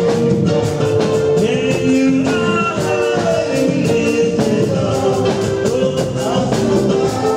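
Live gospel worship music: an electronic keyboard holding sustained chords over a steady beat, with voices singing.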